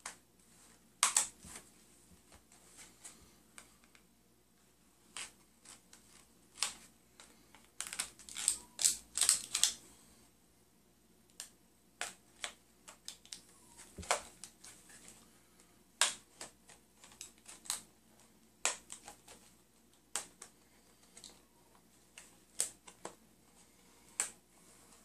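Plastic blister packaging of a two-tube JB Weld epoxy being handled and worked open by hand: irregular sharp clicks and crinkles, busiest about eight to ten seconds in.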